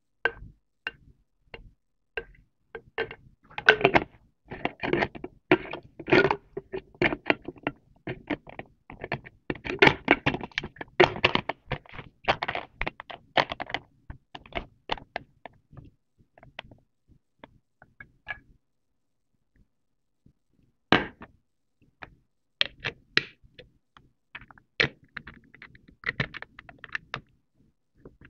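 Hard plastic baby bottle parts being handled: quick runs of clicks, taps and knocks as a cap is fitted and the pieces are knocked together and set down. A quiet pause follows, then one sharp knock, then more scattered taps.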